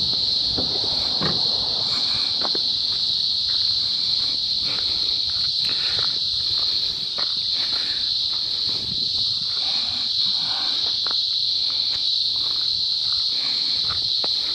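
A chorus of cicadas: a loud, steady, high-pitched buzz, with scattered faint knocks underneath.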